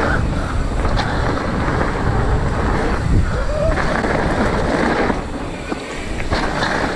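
Heavy wind buffeting the camera microphone over the rumble of a mountain bike running down a dirt trail.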